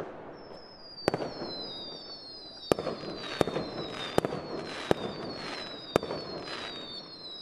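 Fireworks: several whistling rockets, their high whistles overlapping and each sliding slowly downward in pitch, with six sharp bangs spread through.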